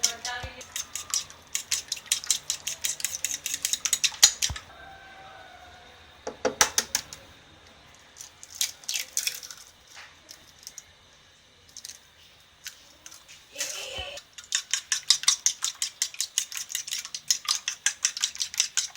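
Fork working eggs in a bowl, clinking rapidly against the bowl at about five strokes a second. It comes in runs with pauses between, the longest run near the end.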